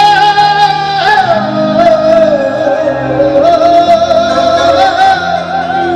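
Male Punjabi singer singing live over band accompaniment, holding long, wavering notes that slide down about a second in.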